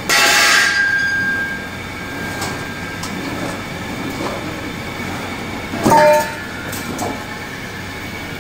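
Metal knocks that ring, as steel roller tubes are handled in a steel machine frame. A loud scraping knock at the start rings on for about a second, and a second knock about six seconds in rings briefly at two pitches, over a steady rumble of handling noise.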